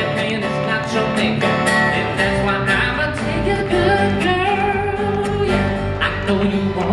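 Live country band music: a male voice singing over strummed acoustic guitars and an electric guitar.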